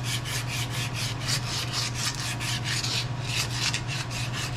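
Quick, even rasping strokes, about four or five a second, of a hand file working a machine handle as it spins in a lathe, over the lathe's steady low hum.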